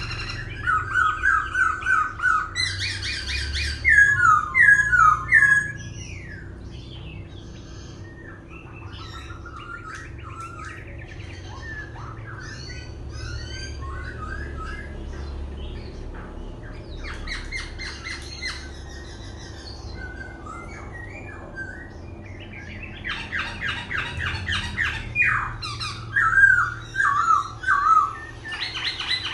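Black-throated laughingthrush singing a varied, ever-changing song. Loud runs of rapid repeated notes come in the first few seconds and again over the last several seconds, with softer scattered whistles and chirps between.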